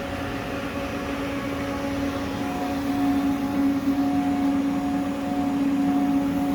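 Haas VF-3 CNC vertical machining center standing powered up but not cutting: a steady electrical hum with one strong low tone and fainter higher tones that come and go.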